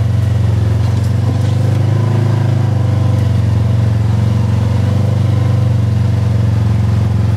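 2022 Polaris RZR Trail Premium side-by-side's ProStar 1000 parallel-twin engine running steadily under way on a dirt trail, heard from inside the cab as a loud, even low drone that swells slightly a couple of times.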